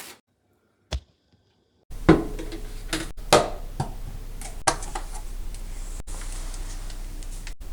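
A few sharp knocks and clicks, the loudest about two seconds in, over a steady low hum in a small room.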